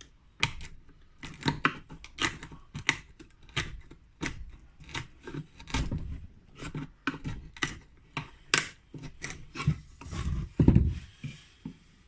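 Wood chisel working the old handle out of a cricket bat's blade: a run of sharp, irregular wooden clicks and scrapes, two or three a second, with a heavier low knock near the end.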